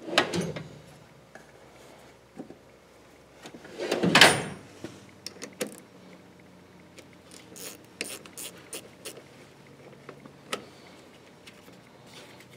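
10 mm ratcheting box-end wrench clicking in short, uneven runs as it loosens the nut on a car battery's negative terminal clamp, with a brief loud burst of noise about four seconds in.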